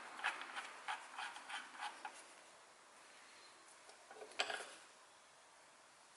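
Small metal parts of a brake accumulator control valve being handled and worked with hand tools at a bench: a quick run of light clicks and scrapes, then a single sharper knock about four and a half seconds in.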